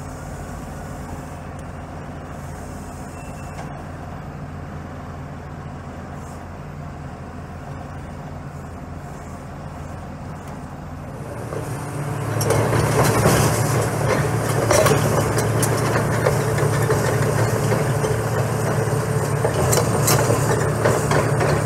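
Diesel engine of a Laurini Muletrax 2500 crawler carrier idling steadily, then revving up about halfway through as the machine drives off, with its steel tracks clanking and clicking over the concrete.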